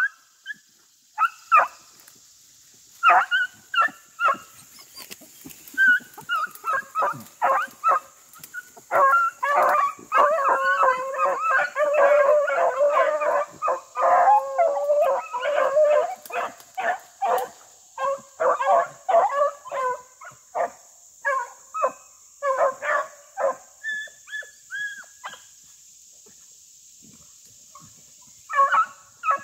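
A pack of rabbit hounds baying and barking as they run a rabbit, several voices overlapping in a dense chorus for several seconds in the middle, then scattered single barks with a short lull near the end.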